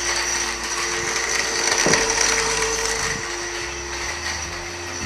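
Countertop electric blender running steadily, churning a mango milkshake with milk, cream and ice cubes in its jar: a continuous motor hum over a churning rattle.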